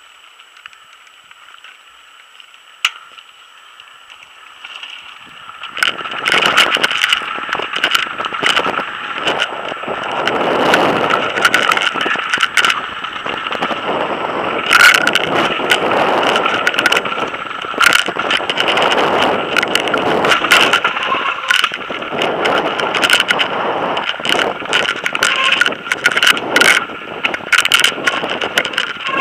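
Mountain bike descending a rough dirt and gravel forest trail at speed, heard up close: tyre noise over the stony ground with a dense run of sharp knocks and rattles from the bike, over wind noise. Quiet for the first five seconds or so, apart from one click, before the ride gets going.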